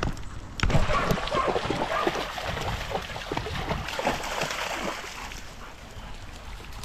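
Dogs wading and splashing through a shallow, fast-running stream, over the steady rush of the water. The splashing is loudest in the first couple of seconds and then eases off.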